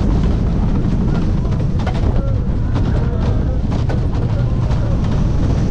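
Wooden roller coaster train running over the track at speed: a heavy steady rumble with irregular rattling clacks, and wind buffeting the microphone.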